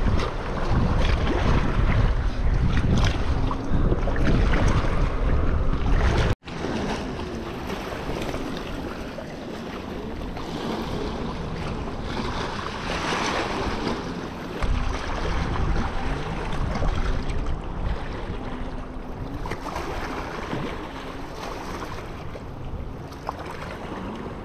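Wind buffeting the microphone over small waves lapping against a rocky shoreline. The wind rumble is heavy for about six seconds, cuts off suddenly, then carries on lighter and steadier.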